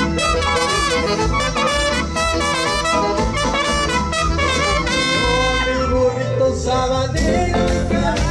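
Live band music led by two trumpets playing the melody together into microphones, over a steady beat, with long held notes about five seconds in.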